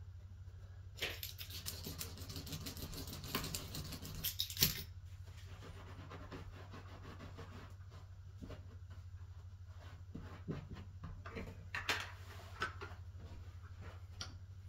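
Scratching and rustling of carpet being worked by hand at a seam, as a carpet seam iron is pushed along hot-melt seam tape and the two carpet edges are rubbed and pressed together. It is loudest in a stretch of about four seconds starting a second in, with a few sharper scratches again around ten to thirteen seconds in. A steady low hum runs underneath.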